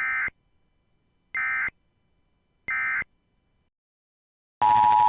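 Three short Emergency Alert System SAME data bursts, each about a third of a second long and about 1.3 seconds apart: the end-of-message code closing a weather warning. About four and a half seconds in, the steady two-tone EAS attention signal starts over hiss, announcing the next alert.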